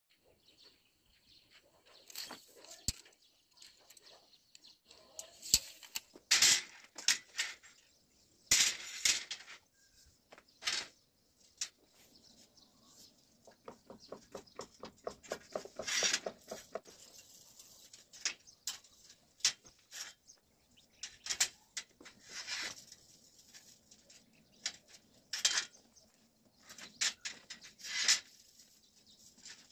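Thin steel flat bars clinking, knocking and scraping against a steel frame as they are handled and bent by hand into an arc. The knocks come irregularly, with a quick rattling run about halfway through.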